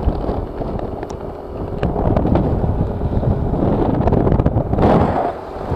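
Loud wind buffeting on the microphone of a camera carried on a moving Yamaha NMAX scooter, with the scooter's engine running faintly underneath. The wind briefly eases just before the end.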